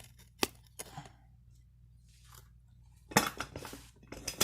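Sharp metal clicks and a short clatter from the stand of a Matco interior car creeper as it is moved and latched into position: two single clicks in the first second, then a quick rattle of knocks a little after three seconds in.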